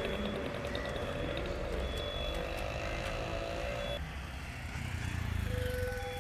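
Road traffic running. About four seconds in, a band of steady tones cuts off, and near the end a building fire alarm's steady siren tone starts.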